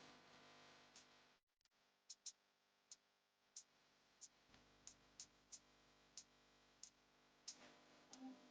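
A small bird repeating short, high chip calls, faint and fairly evenly spaced at about one to two a second, starting about two seconds in, over a low steady hum.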